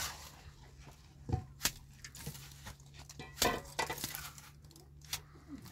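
Irregular knocks and clinks with rustling between them, as of things being handled, over a low steady hum.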